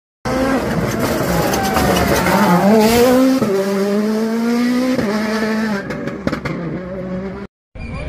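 A World Rally Car's turbocharged four-cylinder engine accelerating hard, its pitch climbing and then dropping sharply twice as it shifts up. A few sharp cracks follow about six seconds in, and the sound cuts off abruptly near the end.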